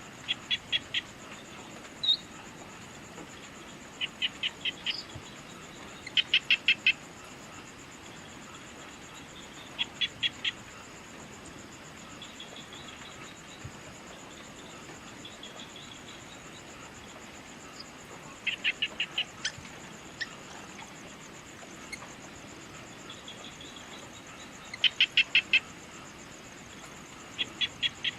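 A bird calling in short bursts of four to six quick, high notes, repeated every few seconds, over a steady high-pitched insect trill.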